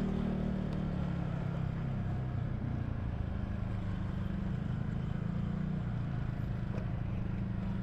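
A vehicle's engine running steadily while driving, a low even hum with road noise.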